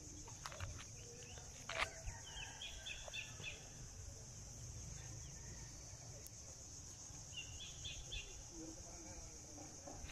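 Steady high insect drone with two short bursts of quick bird chirps, over a low rumble of wind or handling. A sharp knock about two seconds in is the loudest moment.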